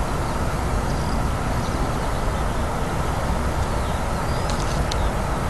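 Steady low rumble of a distant freight train, an electric locomotive hauling tank wagons, with a few short bird chirps about four and a half seconds in.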